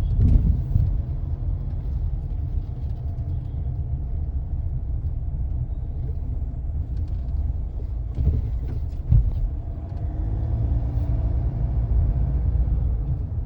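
Steady low road rumble inside the cabin of a Mahindra XUV700, broken by a few sharp knocks and faint plastic ticks from the passenger-side dashboard; the loudest knock comes about nine seconds in. The owner hears it as a plastic-like, 'tak tak tak tak' rattle whenever the car drops into a pothole.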